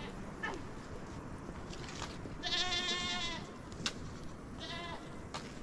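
Small livestock bleating: one long, wavering bleat about two and a half seconds in, then a shorter one near the end.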